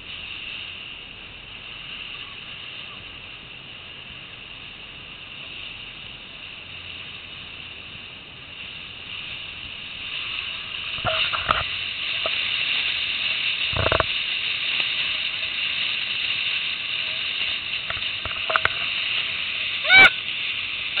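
Steady hiss of water rushing past the bow of a moving boat, growing louder about halfway through. A few short bursts break through it, and a brief high-pitched squeak comes near the end.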